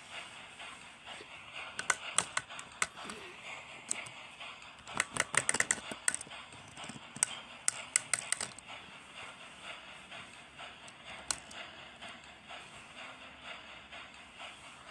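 Plastic toy engine moving over plastic toy-railway points, giving irregular clicks and clatter. The densest run of clicks comes about five seconds in and another just before the halfway point, over a steady hiss.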